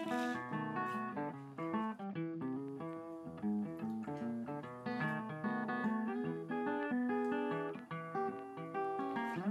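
Background music: a guitar playing a busy, lively run of plucked notes.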